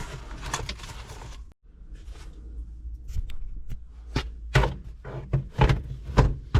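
Knocks, clunks and clicks of car interior parts being pushed and fitted back into place, coming irregularly and more often in the second half.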